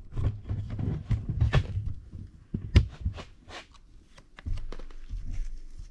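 Handling noises around a bare engine block and crankshaft: irregular rustling with scattered light knocks and clicks, and one sharp click a little under three seconds in.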